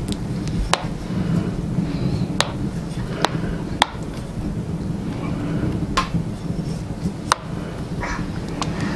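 Metal spoon clinking against an enamel bowl while stirring thick porridge, about six sharp clinks spread irregularly, over a steady low hum.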